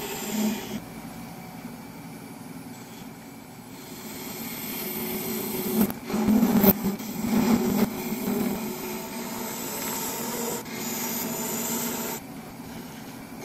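A hand-held turning tool cutting solid brass spinning on a wood lathe: a steady scraping rub of the steel edge on the metal, louder in the middle of the stretch with a couple of sharp ticks.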